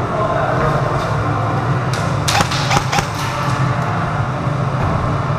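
A quick cluster of four or five sharp snaps of airsoft gunfire about two and a half seconds in, over a steady low hum.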